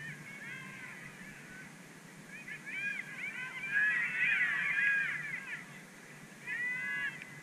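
A flock of geese honking, many calls overlapping, building to a dense chorus in the middle with a shorter burst of calls near the end.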